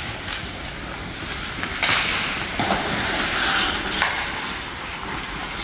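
Ice hockey skate blades scraping and carving the ice in swelling hisses, with a few sharp knocks about two and four seconds in.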